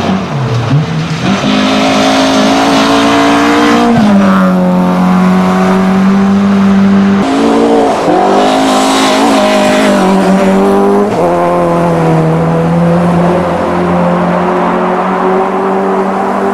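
Toyota Starlet Group F rally car's engine running hard at high revs on a gravel stage. Its pitch drops sharply at gear changes about four, seven and eleven seconds in, and holds steady between them.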